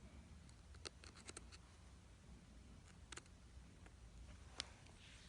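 Near silence with a few faint, sharp clicks and taps: small tools and iPhone parts being handled during reassembly, one click about a second in, a quick run of them just after, and single ones later.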